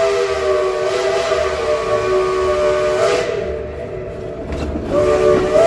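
Shay geared steam locomotive's chime whistle blowing a long chord of several notes over steam hiss. The chord fades about three seconds in, then comes back loud near the end and slides up in pitch as the whistle opens again.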